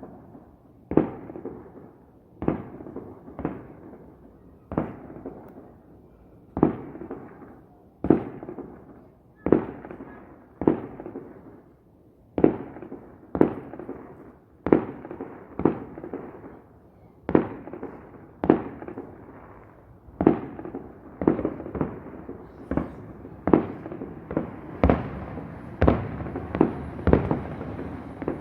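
Aerial firework shells bursting one after another, a sharp boom about every second, each trailing off, with the bursts coming faster near the end.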